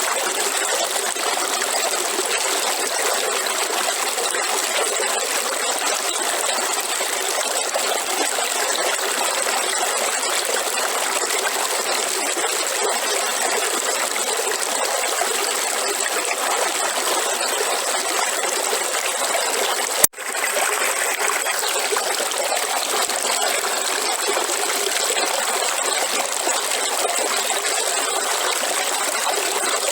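River water flowing steadily over rocks, a continuous rushing and trickling. It cuts out for an instant about two-thirds of the way through, then carries on unchanged.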